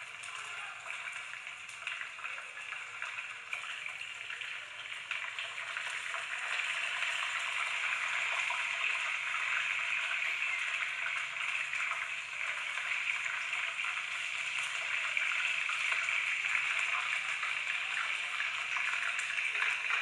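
Chicken wings deep-frying in hot oil in a small pan: a steady sizzle full of fine crackles, getting louder about six seconds in.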